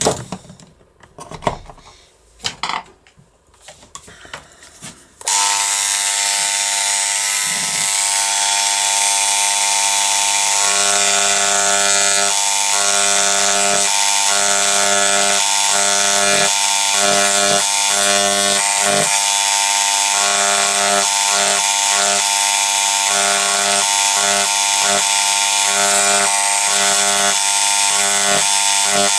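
Electric engraving pen buzzing steadily as its tip scribes lettering into the steel case of a door lock, starting about five seconds in after a few light knocks of handling.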